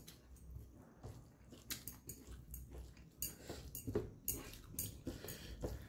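A person chewing a mouthful of rice and dried meat, with irregular wet smacks and clicks of the mouth.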